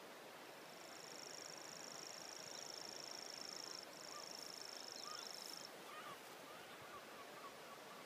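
Grasshopper warbler reeling: a high, steady reel lasting about five seconds, with a brief break near its middle, stopping a little past halfway. Faint short chirps follow.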